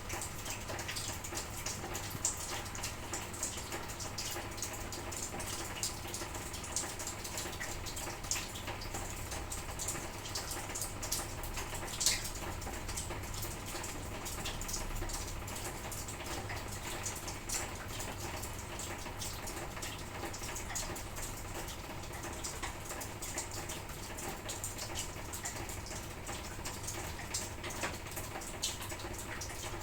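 Light drizzle falling: a steady hiss with scattered drops tapping, one sharper tap about twelve seconds in.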